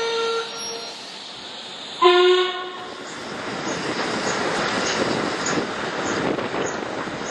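Steam locomotive whistle of LMS Black Five 4-6-0 No. 45110: a held note dies away in the first half-second, then a short, loud blast sounds about two seconds in. After it comes the steady rushing noise of the train running, heard from a carriage.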